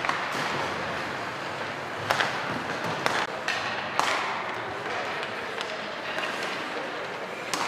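Hockey pucks cracking off sticks and banging into the boards and pads during a warm-up. Several sharp cracks come at the start, in a cluster two to four seconds in, and near the end, echoing over a steady hiss of rink noise.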